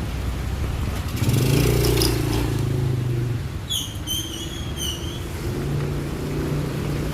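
Motor vehicles passing on a wet road in the rain, their engine hum and tyre hiss swelling about a second in and again near the end. A short run of high, squeaky chirps comes just before the midpoint.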